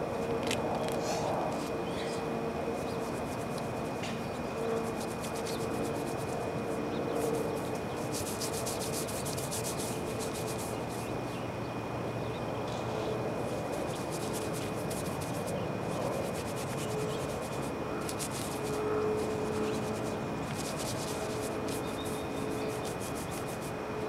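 A brush rubbing and scrubbing over the flat roof surface in runs of quick strokes, over a steady background hum with a thin high tone.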